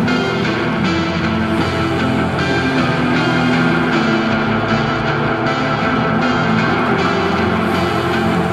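Music: a rock-styled track carried by guitar with sustained chords, with no words heard.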